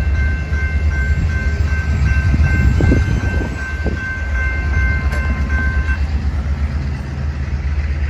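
Railroad crossing warning bell ringing in quick repeated high tones as the crossing gates rise, stopping about six seconds in. A steady low rumble runs underneath.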